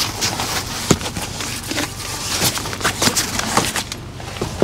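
Things being handled and moved around: an irregular run of small knocks and clicks with rustling between them.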